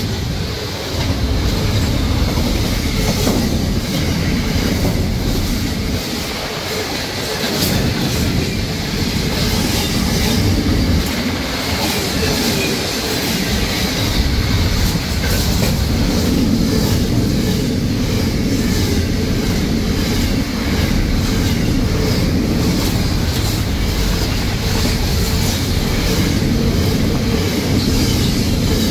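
Container wagons of an intermodal freight train rolling past at speed: a loud, steady rumble of steel wheels on rail, with a rapid run of clicks from the wheels passing over the rail joints.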